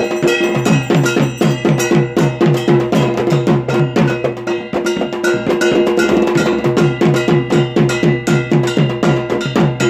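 Drum beaten in a fast, steady rhythm of about four strokes a second, each stroke dropping in pitch, with clanging metal percussion struck along with it.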